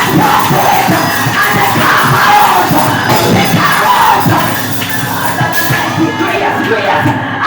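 Church congregation shouting and singing in praise over loud music.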